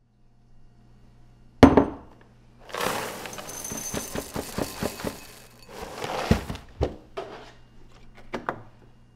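Dry ring-shaped oat cereal poured from a box into a ceramic bowl, a dense rattle of small clicks lasting about three seconds. A sharp knock comes before the pour and a few more knocks follow it.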